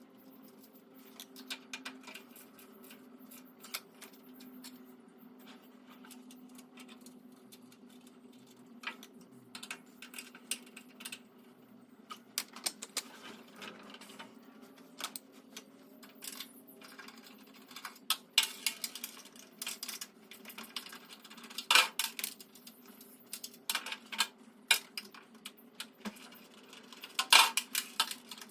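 Scattered metal clinks and clicks of hand tools and bolts as caster wheels are fastened onto a steel tool cart. The clicks come sparsely at first and get busier and louder in the second half, over a faint steady low hum.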